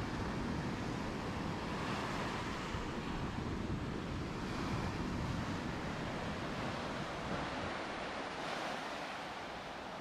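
Ocean surf washing on the beach, a steady wash of waves with wind rumbling on the microphone that eases about eight seconds in.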